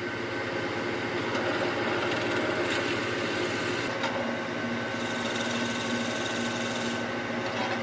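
Holzling wood lathe running steadily with a spruce blank spinning between centres, while a long-hole boring auger is fed through the hollow tailstock. A hiss rises over the hum twice, briefly around the middle and again for about two seconds near the end.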